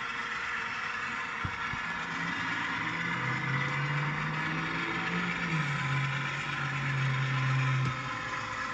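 ScaleTrains model of CSX diesel locomotive #3194 running on a layout with its sound system on: a steady rushing running noise throughout, and a low engine hum that comes in about two seconds in, steps down in pitch past the middle and cuts off near the end. Two light clicks come about a second and a half in.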